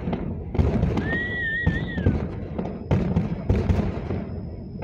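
Fireworks display: shells bursting one after another with booms and thuds over a continuous low rumble. A brief warbling whistle rises about a second in.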